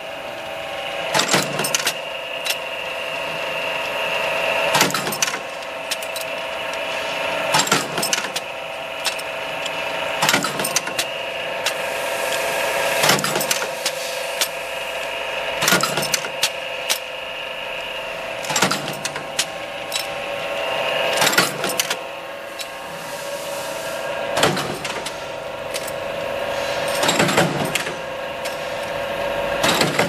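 Mechanical press bending aluminum furniture-handle blanks over a curved die: a steady motor hum that swells between strokes, with a sharp clunk of the ram about every three seconds.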